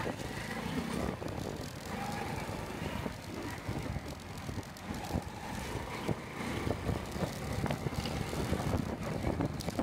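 Street traffic noise: a steady low rumble with frequent short knocks and clicks throughout.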